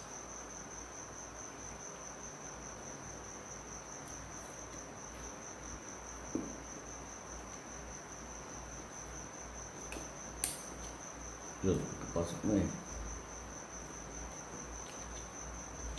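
A cricket trilling steadily in a high, even pulse, with a sharp click about ten seconds in and a few short rustles as wires are fitted into a plastic switch-and-outlet unit near the end.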